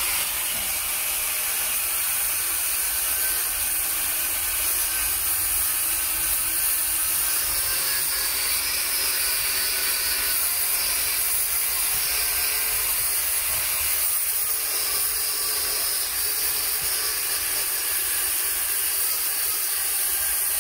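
Angle grinder with a thin 0.4 blade, mounted in a wheeled guide base, running steadily as it is pushed along a floor-tile joint, grinding out the grout.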